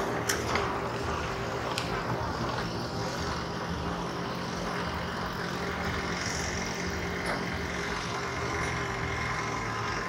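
Steady hum and rushing noise of a vehicle travelling along a road, with two brief sharp clicks in the first two seconds.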